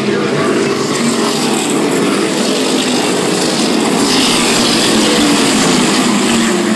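A pack of V8 modified race cars running at speed past the grandstand, many engines sounding together, loudest about four to six seconds in as the bulk of the field goes by.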